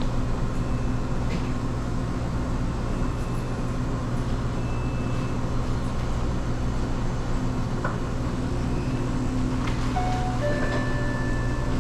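Steady low machine hum of a convenience store's refrigerated coolers and frozen-drink machines, with a few faint short tones near the end.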